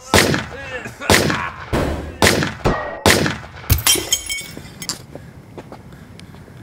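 A handgun firing about six shots, spaced roughly half a second to a second apart, each with a ringing tail. Just after the last shot, about four seconds in, comes a brief scatter of glass tinkling as the car window glass breaks.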